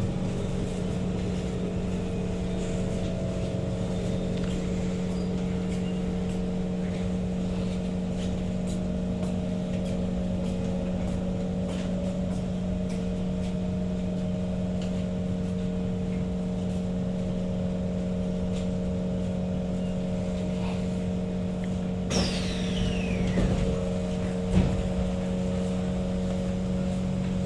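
Kawasaki Heavy Industries C151 MRT train running, heard from inside the carriage: a steady low drone with a few held tones and scattered light clicks. Near the end a falling whine sets in as the train begins to slow, with a few knocks. This car rattles whenever it decelerates, which the uploader takes for a problem with the trainset.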